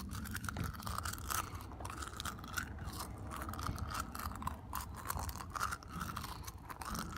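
Handful of small stones being moved around in a cupped hand, clicking and grinding against one another in many small, irregular clicks.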